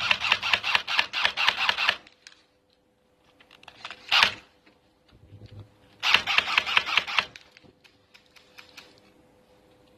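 Airsoft electric gun firing on full auto: two bursts of rapid clicking shots, the first lasting about two seconds and the second about a second, with a single short sharp sound in between.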